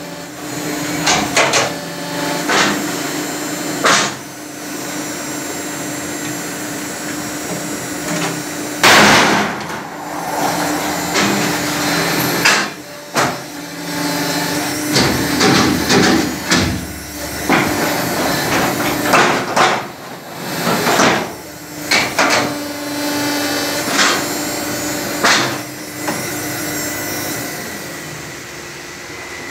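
Concrete paver-block making machine running through its moulding cycle: a steady motor hum under repeated metallic clanks and knocks, with a few loud rattling stretches.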